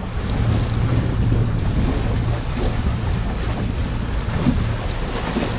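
Steady wind noise on the microphone, a deep even rumble.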